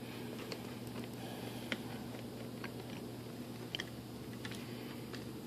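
A few faint, sharp clicks and taps of a small screwdriver working a screw into an aileron servo hatch cover, over a low steady hum.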